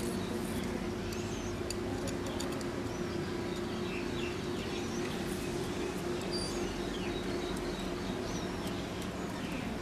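Outdoor background of a steady low hum with scattered faint bird chirps, and a few light clicks of a plastic toy being handled in the first couple of seconds.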